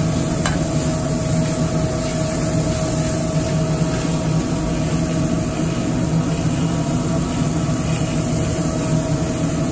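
Steady low drone of a commercial kitchen's gas range and ventilation, with a pan of onions and mushrooms frying on the burner underneath. A single short scrape or tap of the spoon in the pan comes about half a second in.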